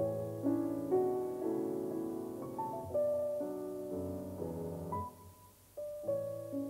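Piano music: struck notes and chords, each fading after it is played, with a brief pause about five seconds in before the playing resumes.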